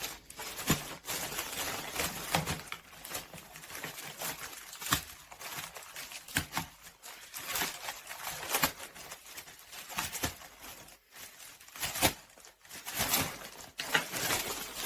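Parcel packaging being handled and opened: irregular crinkling, rustling and tearing of plastic and paper wrapping.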